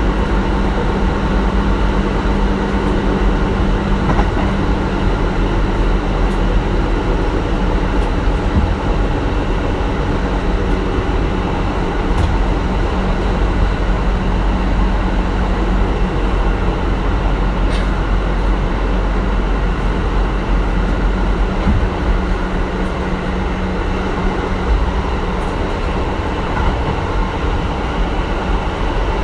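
Kintetsu 1420 series electric train with Mitsubishi GTO-VVVF drive running steadily at speed: an even rumble of wheels and running gear on the rails, with a couple of brief clicks.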